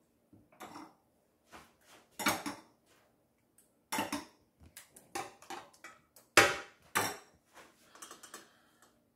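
A serving spoon clinking and scraping against a bowl and a metal loaf pan while tomato sauce is spooned over lasagna layers: a string of irregular taps and knocks, a few of them sharper and louder.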